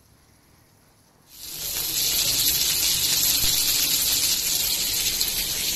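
Hot oil sizzling around stuffed mackerels shallow-frying in a nonstick pan: a steady, loud hiss with fine crackling that starts abruptly about a second in after near silence.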